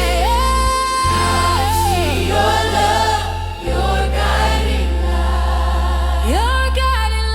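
Gospel music with a choir singing wordless held notes over a steady bass line; a lead voice slides up into a long high note near the end.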